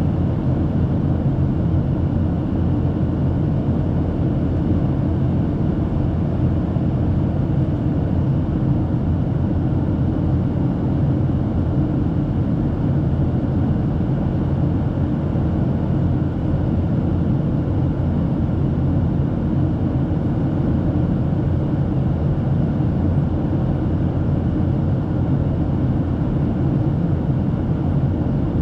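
Steady cabin noise of a Boeing 737-800 in climb, seated beside the wing: the low, even rumble of its CFM56 turbofans and the airflow over the fuselage, unchanging throughout.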